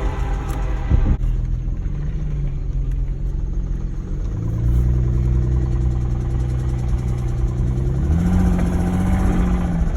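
Infiniti G35's V6 engine running, its revs raised in a step about four seconds in and again about eight seconds in, then falling back near the end; the engine is known to have a rod knock.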